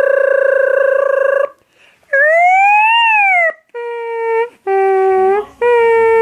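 A boy imitating a siren with his voice. A long steady note breaks off about a second and a half in. After a short pause comes one wailing rise and fall, then alternating high and low notes like a two-tone siren, with short breaks for breath between them.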